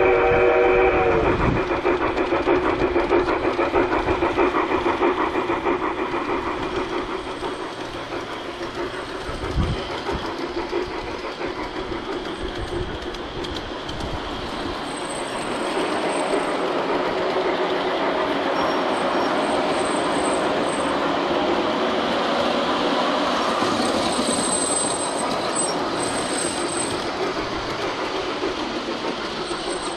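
G-scale model steam train (the Piko White Pass & Yukon Route passenger train) rolling along its track, heard from on board: a steady rumble and clatter of the wheels running over the rails, with a thin high whine coming and going. A steam whistle from the locomotive's sound unit cuts off about a second in.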